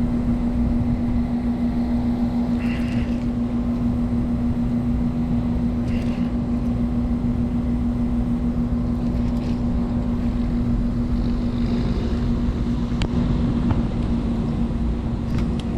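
Steady motor hum holding one constant tone over a low rumble, with a few faint brief sounds on top.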